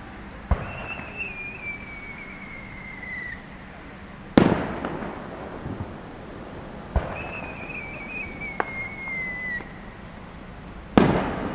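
Two whistling aerial firework shells, one after the other: each goes off with a short thump, then a whistle slowly falls in pitch for about three seconds, then the shell bursts with a sharp loud bang. The first bang comes just under halfway in, the second near the end.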